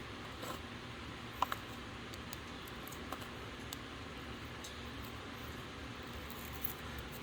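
Faint steady hiss with a few light, sharp clicks from handling.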